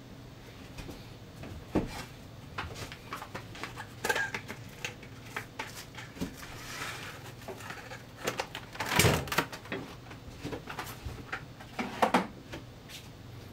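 Plastic cling wrap crinkling and rustling as it is handled and pressed over a ceramic dish, with scattered small clicks and knocks. The loudest rustle comes about nine seconds in, and another cluster about twelve seconds in.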